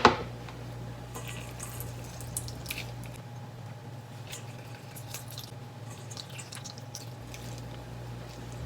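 Lemon juice being squeezed by hand into a bowl: a sharp click at the start, then small drips and splashes of juice.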